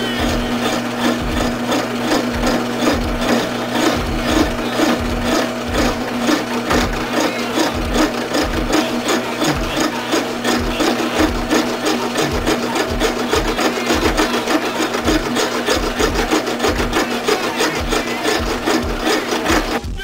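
An electric drill running with a steady hum while a screw spun in it is rasped to a point, in regular rasping strokes about two to three a second. The sound stops abruptly at the end.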